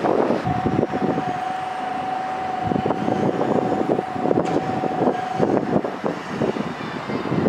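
Nankai electric train passing through a station at speed without stopping: rushing noise with a rapid, irregular clatter of wheels over rail joints. A single steady high tone sounds from about half a second in until about five and a half seconds in, then stops.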